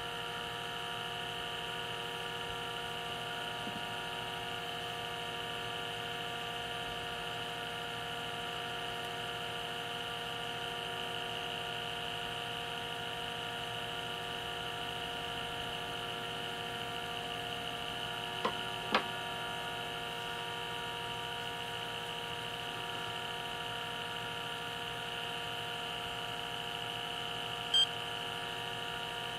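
Steady electrical hum with a high whine over it. Two light clicks come a little past halfway, and a short beep near the end as the digital scale's button is pressed.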